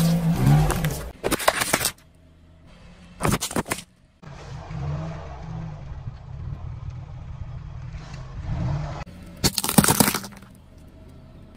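Objects crushed under a slowly rolling car tyre: sharp crunching and cracking about a second and a half in, again around three and a half seconds in, and loudest near ten seconds. Between the crushes the car's low engine and tyre rumble runs on.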